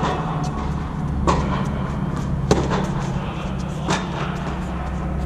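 Tennis rally: sharp strikes of racket on ball, four of them roughly every second and a quarter, over a steady low hum.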